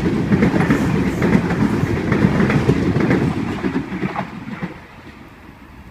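Sydney Trains Waratah (A set) electric train running along the platform, its wheels clattering over rail joints with the rumble of the cars. The sound fades away over the last couple of seconds as the train moves off.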